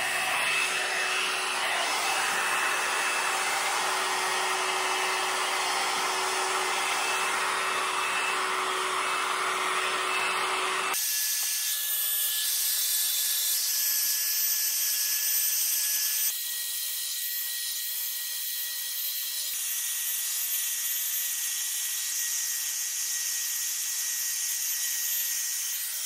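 Hot-air brush hair dryer blowing steadily: a continuous rush of air with a faint steady whine. The sound changes abruptly about 11 seconds in and again about 16 seconds in, becoming thinner and losing its low part.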